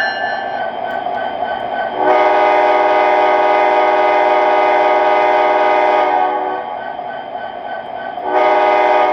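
Sound system of an MTH SD70ACe O-scale model diesel locomotive: a bell ringing about three times a second over the running rumble. A horn gives one long, steady blast of about four seconds starting some two seconds in, and a second blast begins near the end.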